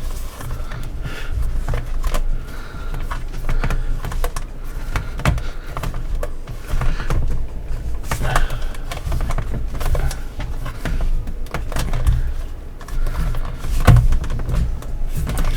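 Hard plastic sections of an action-figure display base being handled and pressed together: irregular clicks and knocks, with a louder knock near the end. The pieces are resisting and not seating properly.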